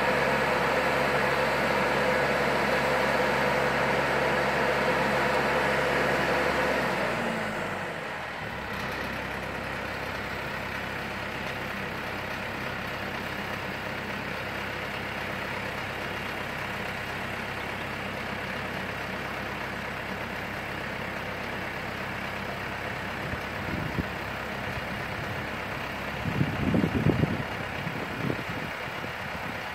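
A boatyard travel lift's engine runs at raised revs, then slows and drops to a quieter idle about seven seconds in. There are a few short low rumbles near the end.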